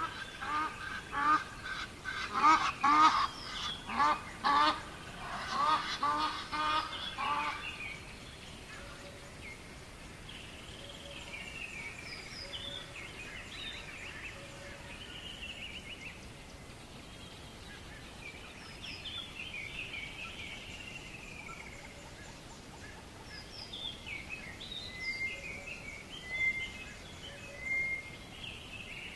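Geese honking in a quick run of short, repeated calls that stops about seven or eight seconds in. Small songbirds then sing and chirp more quietly, with a few louder chirps near the end.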